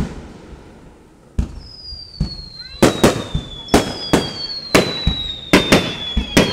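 Aerial firework shells bursting overhead in quick succession: about ten sharp booms, the first about a second and a half in, several coming in close pairs. Long high whistles that slowly fall in pitch run beneath the booms.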